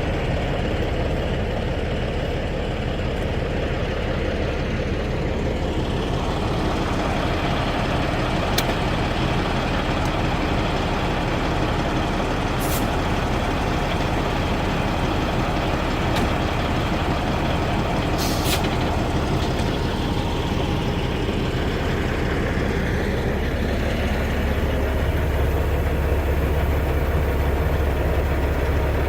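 A heavy diesel truck engine running steadily, with a few short high hisses in the middle. The low engine note grows stronger near the end.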